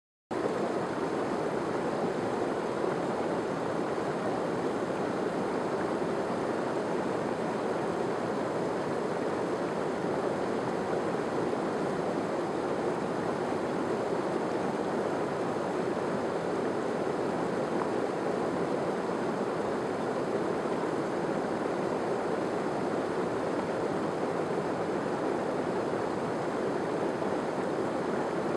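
Small mountain stream cascading over rocks, a steady rush of water that cuts in abruptly just after the start.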